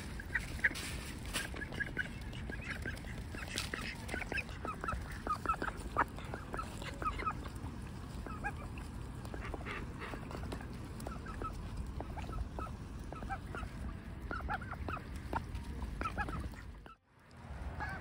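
Ducks giving soft begging calls: many short, repeated notes in quick succession over a steady low background noise. The sound briefly drops out near the end.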